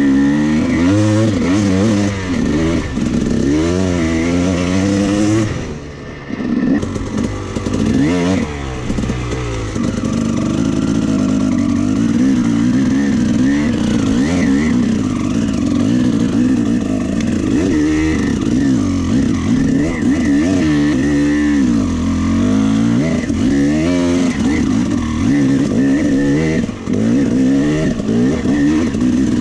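Husqvarna TC 300 dirt bike's engine running under riding, its pitch rising and falling over and over as the throttle opens and closes, easing off briefly about six seconds in.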